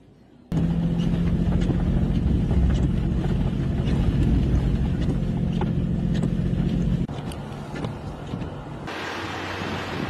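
Steady low motor hum with scattered clicks, cutting to a quieter rumble about seven seconds in; wind buffets the microphone near the end.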